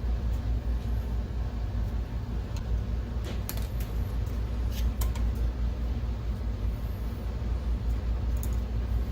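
Steady low background rumble, with a few light clicks and taps of small parts being handled as a projector's color wheel housing is opened.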